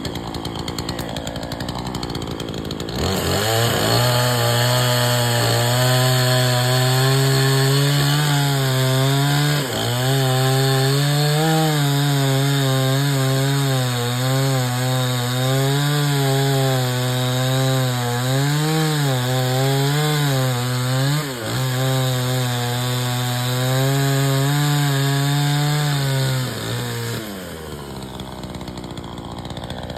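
Remington chainsaw running slowly, then opening up about three seconds in and running at high speed while cutting wood, its pitch wavering and dipping under load. It drops back to a low, rough run near the end.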